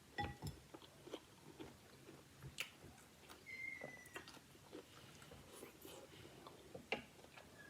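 Faint, close-miked chewing and mouth sounds of a person eating, with scattered small clicks and ticks.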